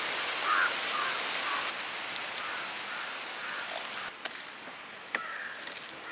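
Hands rubbing wet masala paste into a scored whole fish on a steel plate: a steady wet, hissing smear, with a couple of sharp taps on the plate near the end. Birds call in the background.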